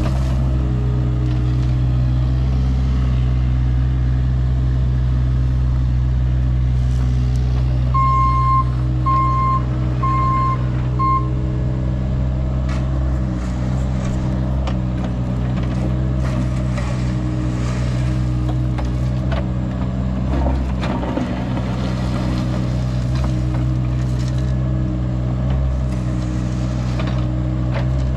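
Cat 303E mini excavator's diesel engine running steadily as the machine works, its bucket scraping and dragging gravel. Four short electronic beeps sound about eight seconds in.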